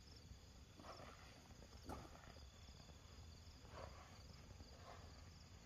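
Faint, steady chirping of insects, with a few soft scuffing footsteps on sand and gravel.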